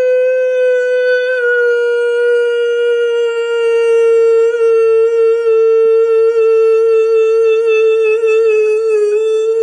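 A single long held note, hummed or sung, with a full, reedy tone, sliding slowly and steadily down in pitch without a break.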